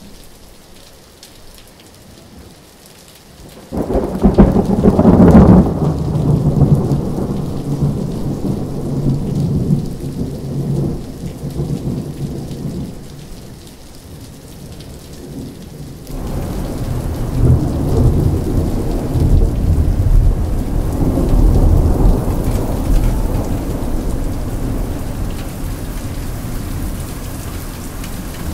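Thunderstorm with steady rain. A few seconds in, a sudden loud thunderclap breaks and rolls off over several seconds. Past the middle, a second long rumble of thunder starts suddenly and keeps rolling.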